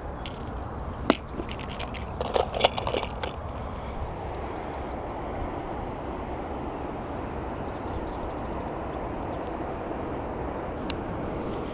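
Steady low rumble of wind on the camera microphone. A sharp click comes about a second in, then a short cluster of clicks and knocks from handling fishing tackle, and a single tick near the end.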